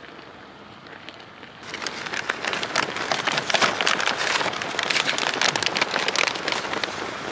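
Self-heating military ration pouches hissing and crackling as the flameless heater packs inside boil their water. The sizzle grows suddenly loud about a second and a half in.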